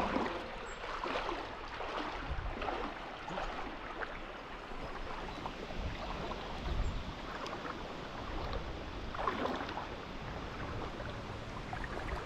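Footsteps wading and splashing through a shallow freshwater creek, with irregular splashes over a steady wash of running water.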